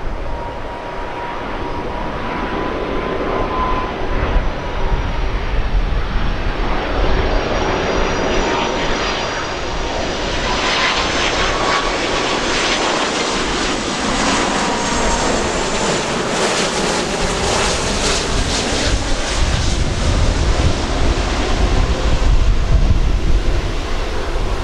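Airbus A330 jet airliner on landing approach, its engines running with a steady whine of thin high tones over a loud rushing noise, the tones sagging slightly in pitch as it passes. Low rumble of wind on the microphone.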